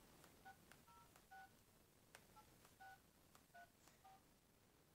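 Faint keypad tones of an AKEU M5 mini card phone as a phone number is dialled: about seven short two-note DTMF beeps at an uneven pace, with light button clicks.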